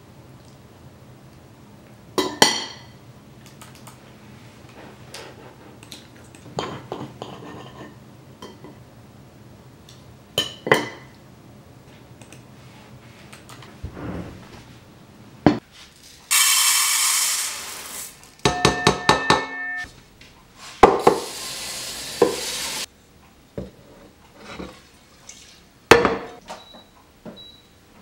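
Fork and knife clicking and scraping on a ceramic plate as waffles are cut and eaten, a sharp clink every few seconds. Later come louder dish sounds: two stretches of rushing noise, each a second or two long, and a quick run of ringing clinks.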